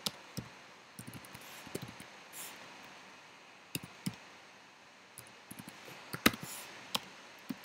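Computer keyboard typing: irregular single keystrokes and short runs of clicks, with a pause of about a second midway and the loudest keystroke about six seconds in.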